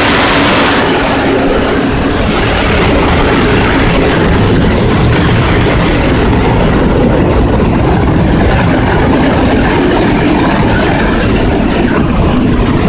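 A MÁV class V43 electric locomotive pulling a passenger train out of a station, followed by its coaches rolling past close by, a loud steady rush of running gear and wheel noise on the rails.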